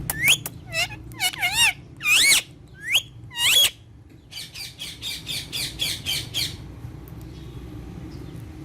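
Ringneck parrot calling: several loud squawks that sweep up and down in pitch over the first four seconds, then a quick run of about a dozen short repeated calls.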